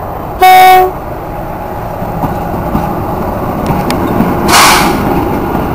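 SP42 diesel locomotive sounding one short horn blast, then its diesel engine running as it passes close by, with a brief hiss about four and a half seconds in.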